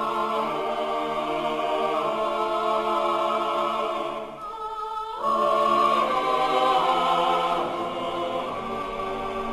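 Choir-like music holding long, sustained chords, the kind of heavenly choral sting that marks a miraculous moment. About four and a half seconds in it briefly fades, then comes back louder on a new, brighter chord.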